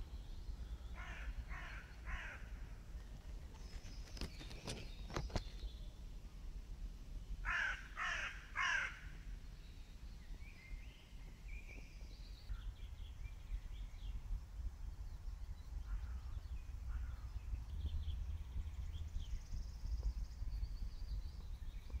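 A crow cawing, three quick caws and then three more, louder, a few seconds later, with a few sharp clicks between them. Faint small-bird chirps and a low rumble run underneath.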